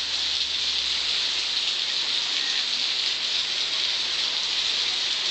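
Heavy rain pouring onto a flooded street, a steady, even hiss of drops hitting standing water.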